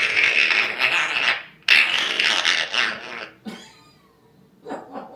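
African grey parrot making two long, noisy screeches of about a second and a half each, then a short, quieter sound near the end.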